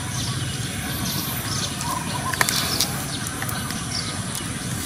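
Small birds chirping again and again over a steady low background noise, with a single sharp click about two and a half seconds in.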